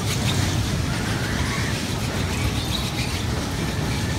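Steady low rumble of a children's track ride running along its metal rail, under a general indoor arcade din.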